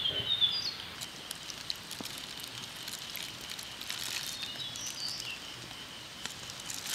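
Outdoor woodland ambience: a steady high insect drone with short bird chirps near the start and again about four seconds in, and scattered faint crackles from a plastic bag of salna being handled and poured.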